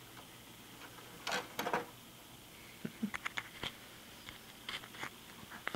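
A cat's paws on a computer tower and tissue box: two short rustles a little over a second in, then a scatter of light taps and clicks on the hard plastic case.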